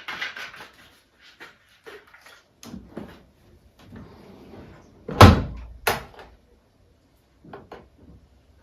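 Household knocks and clicks, with one loud bang about five seconds in and a sharper knock about half a second later.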